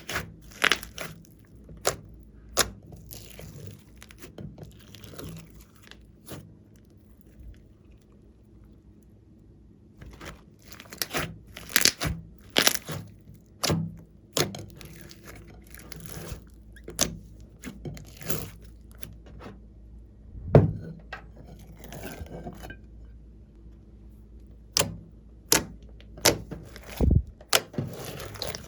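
Slime being squished and stretched by hand: irregular sticky clicks, crackles and small pops, with a quieter stretch about a third of the way in and a couple of heavier thuds later on.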